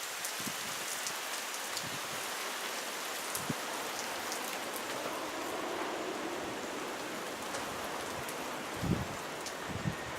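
Heavy rain pouring down steadily during a thunderstorm, a dense even hiss of drops on surfaces with scattered sharp patters. A short low rumble comes near the end.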